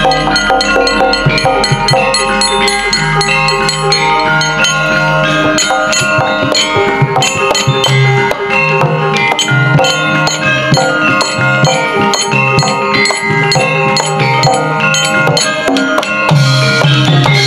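Javanese gamelan ensemble playing: struck bronze metallophones ringing in interlocking tones over drumming.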